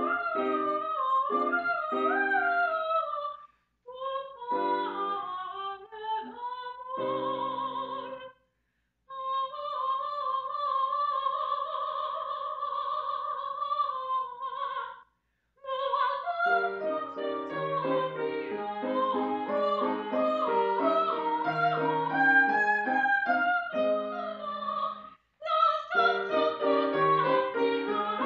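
Coloratura soprano singing an opera aria with piano accompaniment: quick ornamented runs, a long held high note with vibrato from about 9 to 15 seconds in, and piano chords beneath. The music breaks off into brief silences four times.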